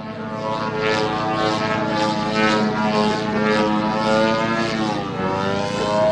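Radio-controlled aerobatic airplane's propeller engine running in flight, its pitch rising and falling with the throttle. The pitch dips about five seconds in and falls again near the end.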